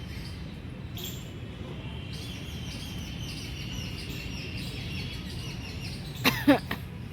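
Outdoor park ambience with a steady high chirring of insects and birds. Near the end, a short loud two-part call drops sharply in pitch.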